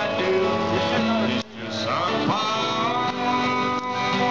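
Live acoustic guitar music, strummed, with a voice singing along. The sound dips out briefly about a second and a half in.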